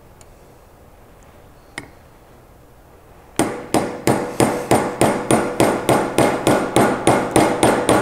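Hammer driving a new roll pin into a winch handle's lock knob through a pin punch. One light tap, then from about three and a half seconds in a steady run of quick, ringing metal strikes, about three a second.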